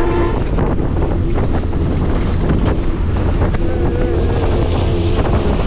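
Local bus running along a road, its engine humming steadily under wind and road noise coming in through the open window.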